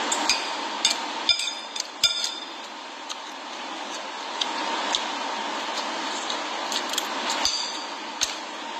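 A metal spoon and fork clinking and scraping on a plate of rice: about ten scattered sharp clinks, a few ringing briefly, over a steady background hiss.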